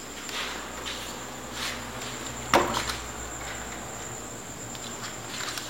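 Insects chirring in a steady, high, thin drone, with a few faint scuffs and one sharper knock about two and a half seconds in.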